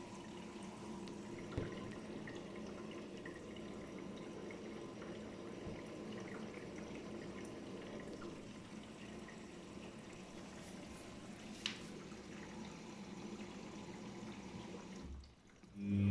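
Daewoo DWD-FT1013 washing machine taking in water, a steady running and trickling of water, with a sharp click at about a second and a half and another near twelve seconds. A loud low hum starts just before the end.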